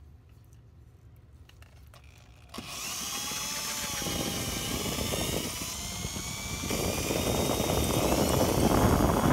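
Electric drill boring into a rusted steel screw head on the face of a brake rotor, to drill it out. It starts about two and a half seconds in and runs as a steady whine that wavers in pitch as the bit bites, growing louder toward the end.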